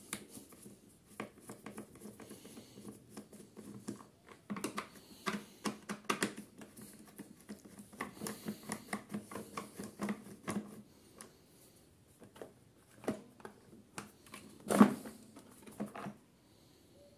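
Screwdriver working the screws of a Briggs & Stratton InStart mower engine's plastic cover, with irregular clicks, scrapes and plastic rattles. One much louder plastic knock comes near the end, as the clipped cover is worked free.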